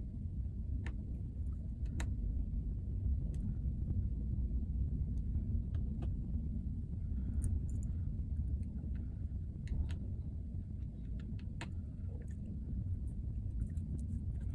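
A steady low rumble with scattered small, sharp clicks and taps of tools and screws on the MacBook Pro's parts during disassembly.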